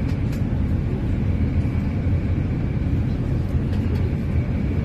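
A high-speed ferry underway: a steady low engine drone mixed with rushing wind and water noise, with a faint steady high whine above it.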